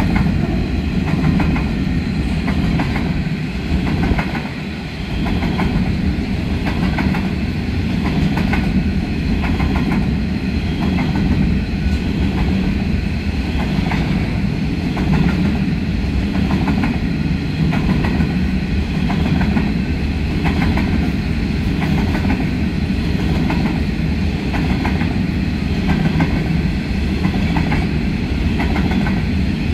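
Empty coal hopper wagons of a long freight train rolling past: a steady low rumble of wheels on rail, with a regular clickety-clack about once a second.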